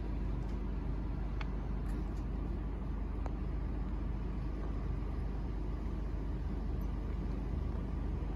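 Steady low rumble of a stationary car's engine idling, heard from inside the cabin, with a couple of faint clicks.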